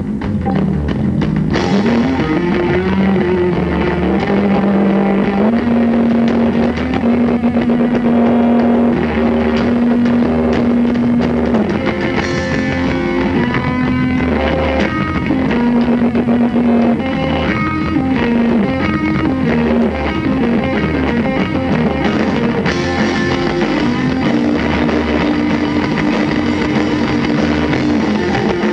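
A live rock band playing loudly on electric guitar, bass and drums, with long held guitar notes that slide up and down in pitch.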